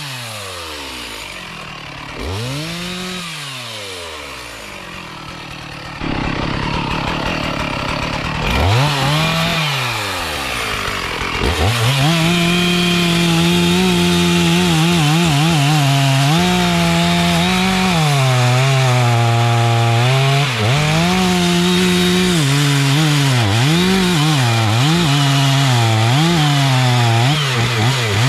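Two-stroke chainsaw revving up and down in a series of blips, then held near full throttle from about twelve seconds in, cutting into mahogany wood, its pitch dipping again and again as the chain bogs under load.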